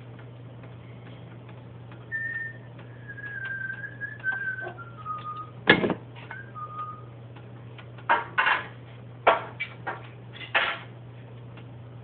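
A run of whistled notes stepping down in pitch, over a steady low hum and faint ticking, followed by several sharp knocks or clatters, the loudest about halfway through.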